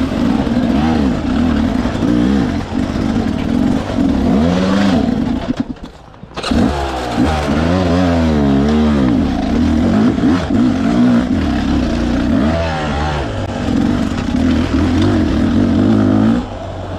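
Off-road dirt bike engine being ridden on a trail, its pitch rising and falling as the throttle is worked. The sound drops away sharply for under a second about six seconds in, then the engine picks up again.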